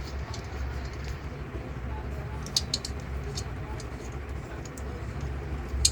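Refrigeration vacuum pump running steadily with a low hum, evacuating the refrigerator's sealed system before the refrigerant charge. A few light clicks sound over it, the sharpest near the end.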